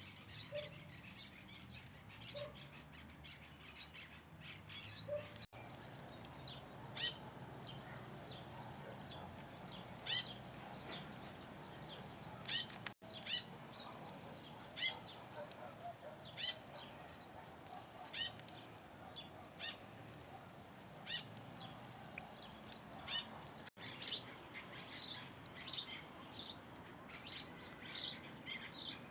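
Small birds chirping: many short, high chirps scattered throughout, with a few lower notes in the first few seconds. Near the end the chirps turn louder and come in a regular run of about two a second.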